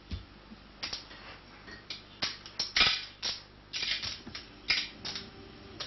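Irregular sharp clicks, clatters and rustles of kitchen items being handled and rummaged through on a worktop.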